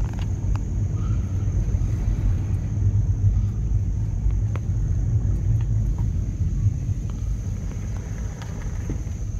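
Low steady rumble of a car rolling slowly, heard from inside the cabin, with a few faint clicks over it.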